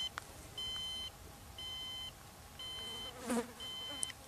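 Rocket altimeter beeping out the flight's peak altitude (2,888 feet) after landing: short, high, even beeps about one a second, four in all. A brief buzz comes about three seconds in.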